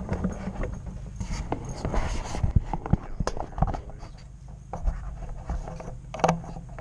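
Irregular scraping, scratching and light knocks, with a low steady hum underneath.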